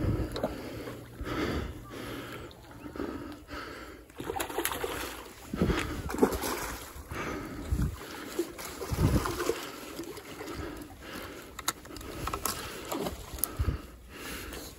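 Spinning reel being wound against a heavy hooked yellowtail, heard under wind buffeting the microphone and sloshing water, with the angler's hard, out-of-breath breathing coming in irregular surges.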